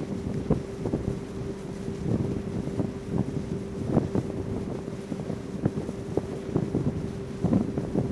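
Ferry's engine running with a steady hum, while wind buffets the microphone in irregular thumps.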